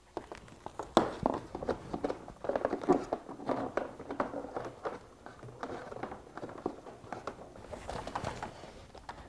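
Light clicks, taps and rustling of hands handling wiring against the plastic bodywork of an ATV, scattered and irregular.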